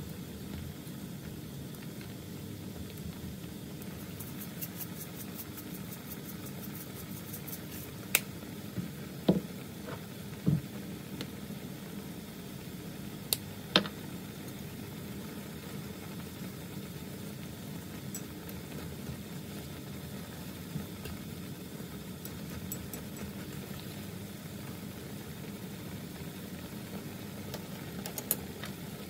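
Pan of ramen broth boiling steadily on a gas stove, a low even rush throughout. A few sharp clicks and knocks from the chopsticks against the pan come between about 8 and 14 seconds in.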